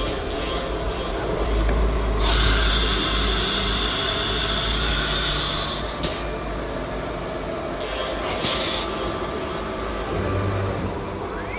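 Six-sided CNC drilling and milling machine running with steady mechanical noise. A loud hiss comes from about two to six seconds in and a brief one a little after eight seconds. Near the end, a whine starts to rise in pitch.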